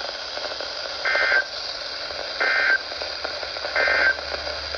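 Weather radio sending the Emergency Alert System end-of-message code: three short bursts of warbling digital data tones, each about a third of a second, a little over a second apart. Steady radio hiss runs beneath them.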